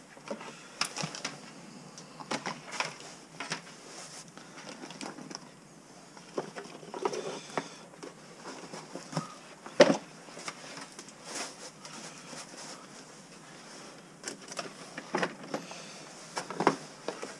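Handling noise on a workbench: scattered clicks, knocks and rustling as small items and cardboard boxes are moved and put down, with one sharp knock about ten seconds in.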